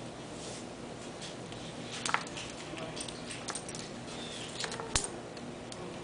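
Small white wire rack clicking and rattling on a tile floor as a cat paws at it, in a scatter of sharp ticks, the loudest about two seconds in and about five seconds in.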